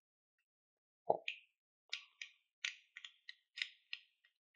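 Small plastic parts being handled: a soft knock about a second in, then a quick run of light clicks and taps as a black 3D-printed case is pressed and turned in the hands.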